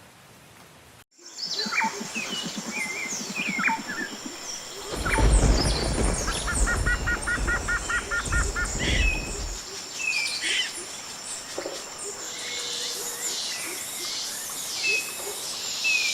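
Rainforest ambience: many birds calling with chirps, whistles and trills, and a low, rapid pulsing call early on. A deep rumble starts about five seconds in and lasts some five seconds. It follows a second of faint rain hiss that cuts off.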